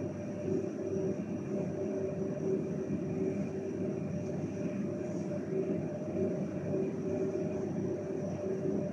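Steady hum of a shop's cooling machinery, with a few held tones over a low rumble.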